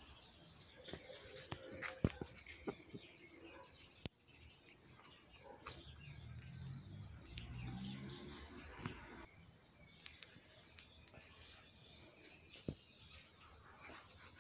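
Birds chirping faintly, with a few sharp clicks scattered through.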